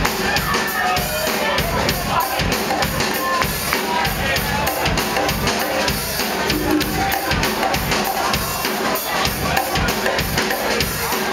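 Live band playing music, with a drum kit keeping a steady beat.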